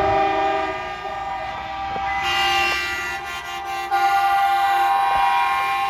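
Semi-truck air horns blowing in long, steady, overlapping blasts, several chords at once. Another horn comes in about two seconds in, and a louder one joins about four seconds in.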